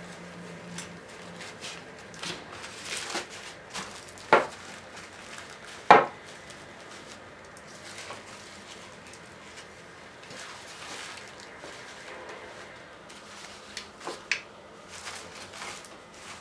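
Paper towels rustling and crinkling as raw potato sticks are laid on them and patted dry, with light clicks of the sticks being handled against a plate. Two sharp knocks, about a second and a half apart, come about four seconds in and are the loudest sounds.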